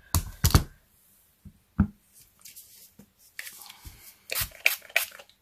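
A few short knocks, then a rubber stamp being scrubbed clean on a Stampin' Scrub's two fibrous pads: a run of short scratchy rubbing strokes in the second half.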